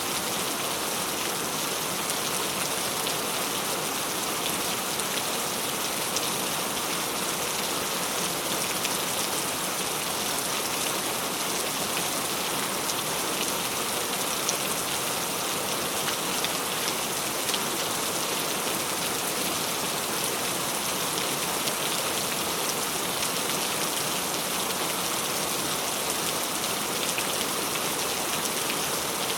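Steady rain falling, a dense even hiss of drops with fine patter throughout.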